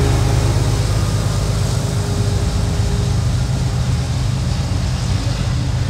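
Diesel locomotives of a slow CSX intermodal freight train running as the train passes: a steady, low rumble with no break.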